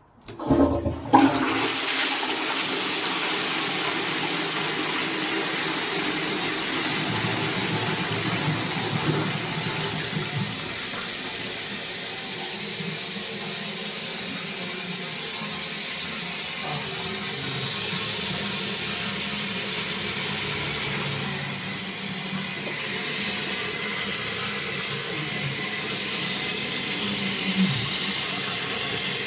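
Toilet flushed by pulling the chain of a 1989 Shires Lynx high-level cistern. A sudden loud rush of water comes down into the 1930s Howson 'Superex' pan about a second in, then settles into a steady rush of running water.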